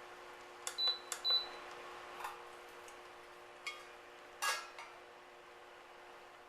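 Metal pot lid clinking as it is set onto a pot of simmering potatoes: a few light clicks and clinks, two of them with a brief high ring, over a steady low hum.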